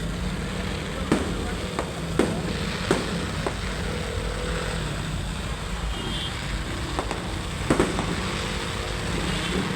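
Fireworks going off: a scattered series of sharp bangs, several in the first few seconds and a close pair near the end, over a steady low background rumble.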